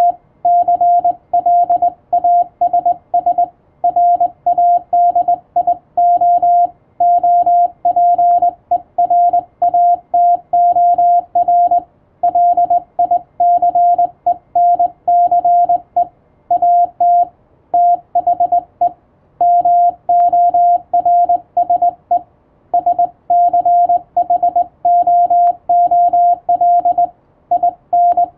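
Morse code (CW) sent as a single mid-pitched beep keyed on and off in quick dots and dashes, with short breaks between characters and a few longer pauses between words.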